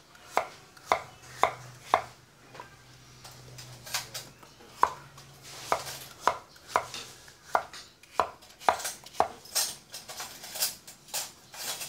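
Cleaver chopping bottle gourd on a wooden cutting board: a run of sharp knocks, about two a second, thinning out briefly about two seconds in.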